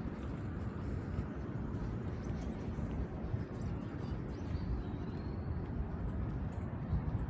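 Outdoor ambience: a steady low rumble of wind or distant traffic, with faint, brief bird chirps, one thin whistle drawn out for about a second midway.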